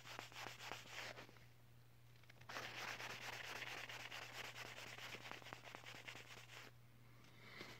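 Hands rubbing together close to the microphone: a steady dry rubbing that starts about two and a half seconds in and lasts about four seconds.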